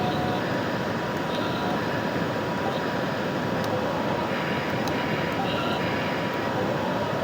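Steady whirring of a radio-controlled toy construction machine's electric motor and gears, with a faint constant whine.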